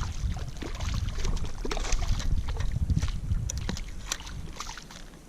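Water splashing and short knocks and clicks around a kayak as a hooked small redfish is brought in, with wind rumbling on the microphone.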